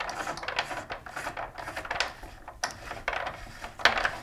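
Self-extracting cap of a Rotor crankset being screwed by hand into the crank arm: irregular metal rubbing and scraping with a few small clicks, the loudest about four seconds in.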